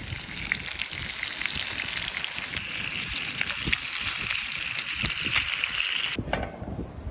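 Food frying in a hot pan, a steady sizzle with scattered little pops and crackles; it stops abruptly about six seconds in.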